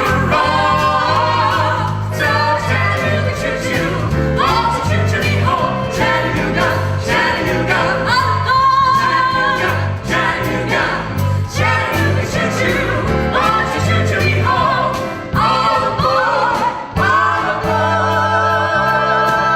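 Several voices singing a song together over instrumental accompaniment with a steady stepping bass line, ending on a long held chord near the end.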